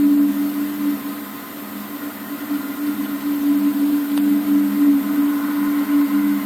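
A low, steady two-tone drone, swelling and fading in loudness over a few seconds, of the kind circulated as a mysterious 'strange sky sound'. A faint click about four seconds in.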